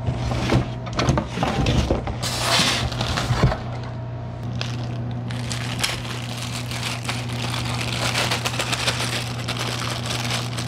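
Unpacking noises. A styrofoam packing block knocks and scrapes against its cardboard box in the first few seconds. Then, from about four seconds in, a small plastic bag of screws and mounting hardware crinkles and rustles in the hands. A steady low hum runs underneath.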